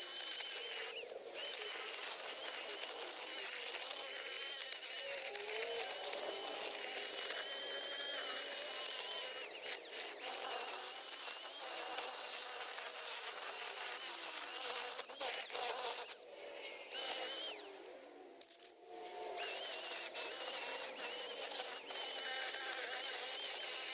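Electric drill spinning a sanding mandrel against carved wood, a steady high whine with grinding hiss. It pauses briefly about a second in and twice more near two-thirds of the way through.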